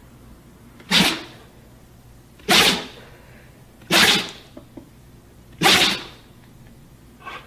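Dog sneezing four times, each a sharp sudden blast about a second and a half apart, with a fainter one near the end.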